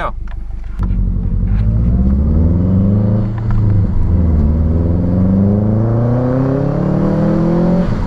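Subaru WRX's turbocharged flat-four engine accelerating hard through the gears, heard inside the cabin. The revs climb, drop briefly at an upshift about three seconds in, then climb again.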